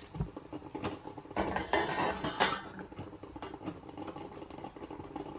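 Metal spatula scraping and clinking against a frying pan as it is worked under a pancake to flip it. The scraping is loudest from about one and a half to two and a half seconds in.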